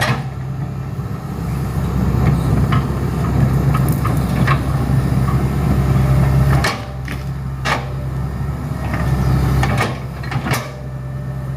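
Hitachi Zaxis 110 excavator running steadily at working revs, with a few sharp knocks in the second half.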